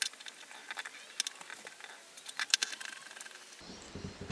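Scattered light clicks and taps of a screwdriver and small screws against the plastic housing of a cordless drill as the case screws are taken out. A low background hum comes in near the end.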